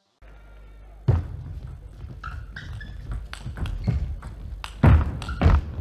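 Table tennis rally: the celluloid ball knocking off the rackets and bouncing on the table in quick, irregular clicks, with shoes squeaking on the court floor; the loudest knocks come near the end.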